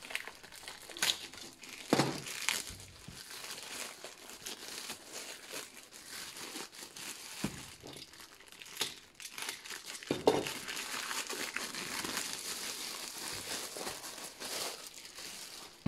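Plastic packaging crinkling and rustling as it is handled and unwrapped by hand, with sharper crackles now and then.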